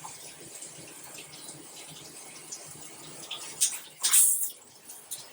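High-pressure shower head running, its water falling in a steady hiss. Two short, louder gushes of hiss come about three and a half and four seconds in as the spray setting is turned from the waterfall flow toward a spray.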